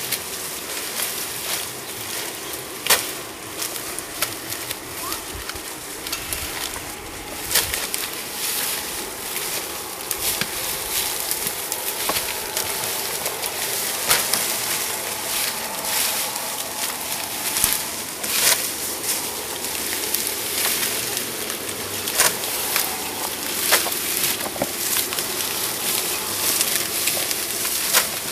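Dry sugarcane stalks and leaves rustling and crackling as cut cane is handled and loaded onto a truck, with a sharp crack or clatter every few seconds as stalks land on the pile.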